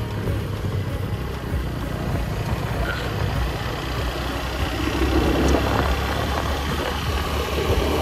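A motor vehicle's engine running steadily under way, with a low hum and road and wind noise; it grows a little louder about five seconds in.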